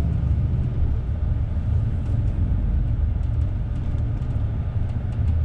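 Bus engine and road rumble heard from inside a moving tour bus: a steady low rumble with road noise.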